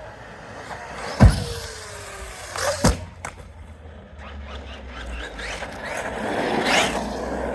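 Traxxas X-Maxx RC monster truck jumping: two hard impacts about a second and a half apart with a falling whine between them, then the electric motor and tyres running again, building near the end.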